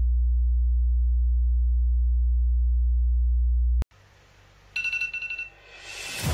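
A loud, steady low hum that cuts off suddenly after about four seconds. A short run of high pulsing chirps follows, then a rising whoosh.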